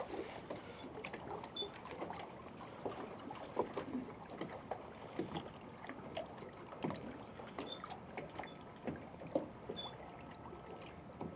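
Water lapping and dripping at the water's edge, with many small, irregular knocks and clicks.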